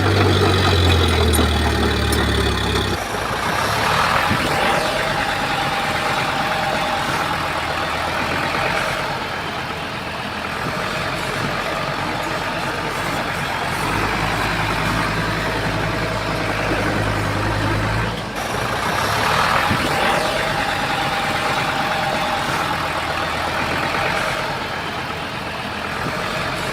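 Diesel engine of heavy earthmoving machinery running under load. Its deep engine note swells and drops twice, with a mid-pitched whine coming and going in between.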